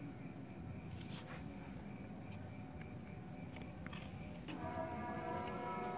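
Crickets chirring in a steady, fast pulsing trill, with a few faint scrapes of a hand sweeping soil. About four and a half seconds in, soft background music with held notes comes in.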